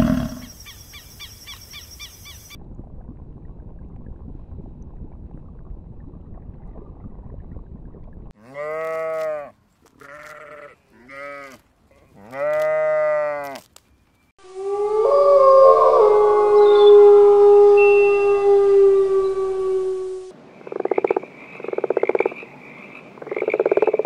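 A lamb bleating four times in short calls, the last one longest; then a longer, different animal call with slowly falling pitch; then a frog croaking in repeated pulsing bursts.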